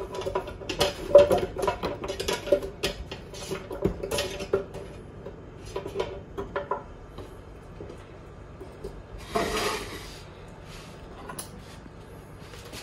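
A plate knocking and clattering against a plastic blender jar as chopped apple and dates are tipped and pushed into it: irregular knocks with a ringing note, thinning out after about seven seconds. A brief hissing rustle follows about nine seconds in.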